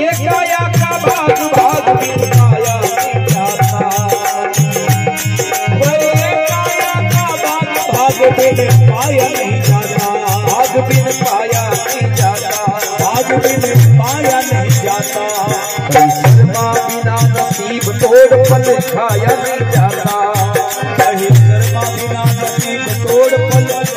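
Instrumental interlude of Indian devotional folk music: a harmonium melody over a steady hand-drum beat, with a shaken, jingling percussion running throughout.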